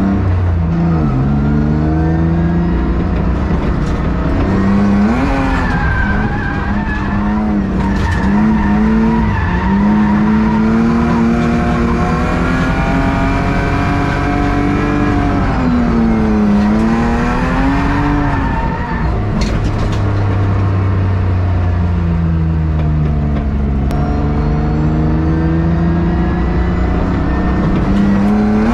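BMW E36 engine revving up and down again and again as the car is driven hard round laps. It is loud, running with only half its exhaust fitted, with tyres squealing at times.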